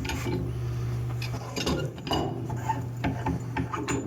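Scattered metallic clinks, knocks and scraping as a pipe wrench is handled and fitted on the steel parts of a CPT cone held in a vise, over a steady low hum.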